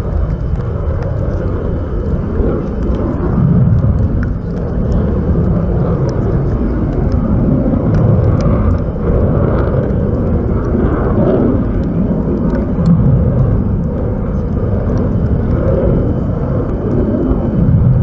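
Continuous low rumble of submarine-launched cruise missiles' rocket motors as missiles break the sea surface and climb away one after another, swelling and easing.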